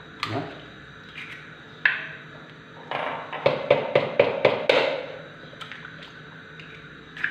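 Eggs knocked and cracked against the rim of a plastic measuring jug: a few single sharp knocks, then a quick run of taps a few seconds in.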